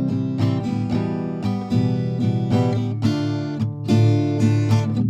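Background music led by strummed acoustic guitar, with chords plucked in a steady rhythm.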